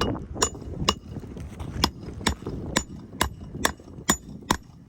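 Hammer blows, about ten in a steady rhythm of a little over two a second, each with a short, high metallic ring.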